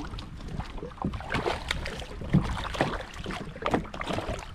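Wind rumbling on the microphone, with small waves splashing and knocking against a kayak hull in irregular short slaps. One sharper knock comes a little past halfway.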